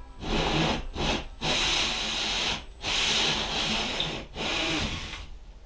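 A tool cutting into the ceiling board for a fan mounting hole, a rough rasping noise in about five stretches broken by brief pauses.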